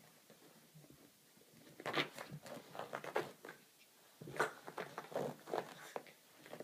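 A dog rolling and wriggling on its back on carpet, its body and fur rubbing and scuffing against the pile in quick rough scrapes. The scuffing comes in two flurries, about two seconds in and again from about four seconds in.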